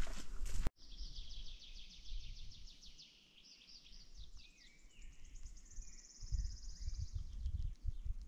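Small songbirds singing: fast high-pitched trills and chirps, after a loud noise that cuts off abruptly under a second in. A low rumble on the microphone comes in from about six seconds in.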